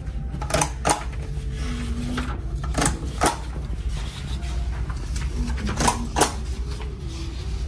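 About six sharp clicks and knocks, in pairs, over a steady low hum in a small room.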